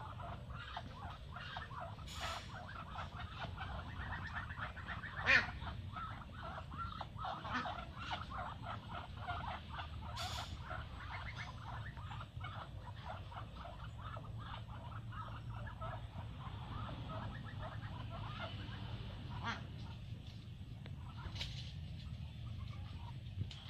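A small flock of Muscovy ducks making a dense stream of soft, quick calls. One louder sharp sound comes about five seconds in.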